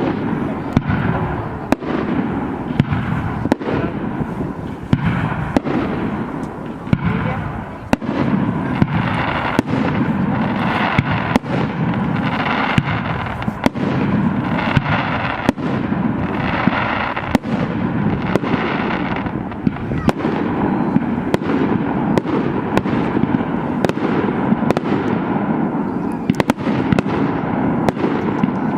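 Fireworks display: sharp bangs about once or twice a second over a continuous dense rumble of bursts.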